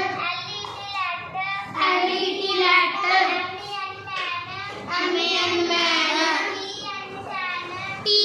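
Young children chanting English words and their spellings letter by letter in a sing-song rhythm.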